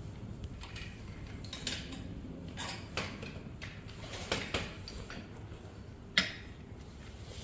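Scattered light metallic clinks and clicks of hand tools and small metal parts being handled, with a sharper knock about six seconds in.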